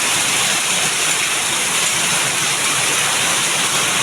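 Heavy rain pouring down, a loud, steady, dense hiss.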